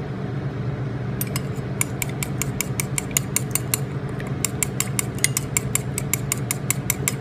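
Metal spoon clinking rapidly against a ceramic bowl while stirring steak drippings into an olive-oil and lemon dressing, about five clinks a second starting about a second in. A steady low hum runs underneath.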